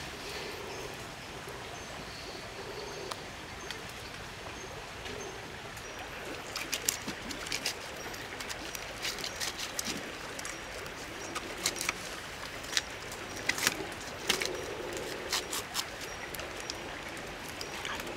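A knife scraping the scalded scaly skin of a crocodile on a rack of sticks: a series of sharp, scratchy clicks in quick clusters from about six seconds in. Under it is a steady background hiss and a low call that repeats every few seconds.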